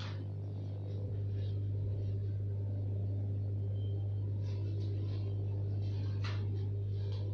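A steady low hum, with a few brief, faint rustles of a papercraft sword being handled, near the start and in the second half.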